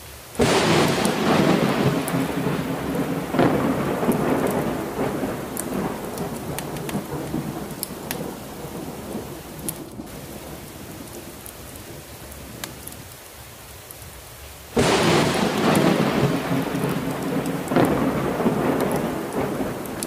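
Steady rain with thunder: a sudden loud thunderclap about half a second in rumbles away over roughly ten seconds, and a second clap breaks about fifteen seconds in.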